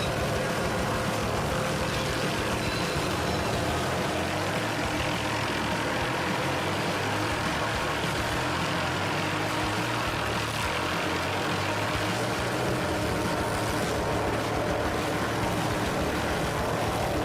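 Helicopter running steadily, an even engine and rotor drone with no break.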